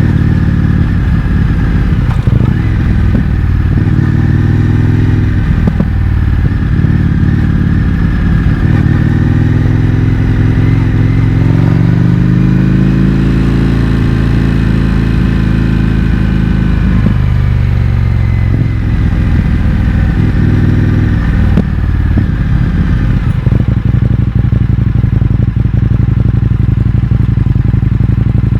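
The V-twin engine of an Indian FTR 1200 running through an Akrapovic exhaust with the baffles removed, heard while riding. About ten seconds in, the engine note climbs steadily and then drops off again. Two short rises follow, and the note settles lower and steadier near the end.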